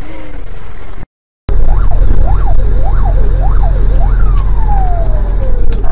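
An emergency vehicle's siren wailing up and down about twice a second. It breaks off briefly about a second in, then resumes over a loud low rumble and ends in one long falling wail.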